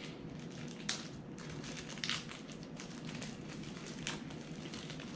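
Plastic packaging crinkling and crackling as it is handled and pulled open, with a few sharper crackles.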